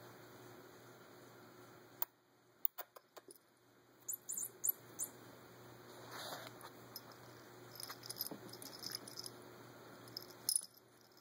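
A kitten's small collar bell jingling in a few short bursts as it moves, with faint rustling and light clicks in between.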